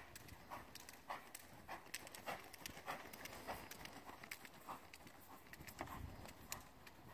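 Horse's hoofbeats on a soft arena surface, a steady rhythm of a little under two beats a second as the horse moves along the arena.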